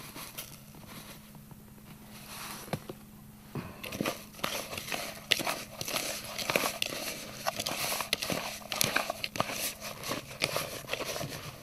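A hand kneads wet breadcrumbs and water into a bait dough in a plastic bowl, making irregular squishing, crackling sounds and little knocks against the bowl from about three and a half seconds in. Before that there is only a faint hiss of breadcrumbs being poured in.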